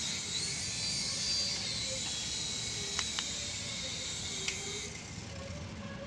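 Toy remote-control helicopter's small electric motors and rotors whirring with a hissing sound as it comes down low, with three light clicks in the middle. The whirr drops away about five seconds in.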